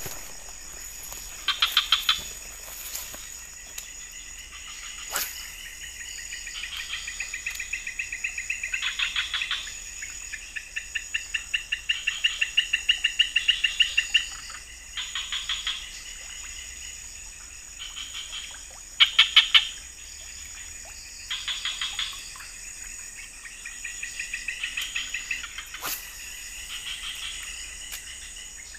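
Outdoor chorus of calling insects: a steady high-pitched drone runs under repeated runs of rapid chirping pulses that come and go every few seconds. One run about two-thirds of the way through is much louder than the rest. Two short sharp clicks stand out, one early and one near the end.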